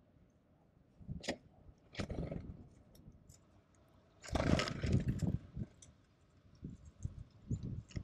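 Small birds fluttering and scrabbling on a tray seed feeder right at the microphone: short rustling bursts about one and two seconds in, a longer, louder flutter about four seconds in as a titmouse takes off, then light taps as a chickadee lands on the rim.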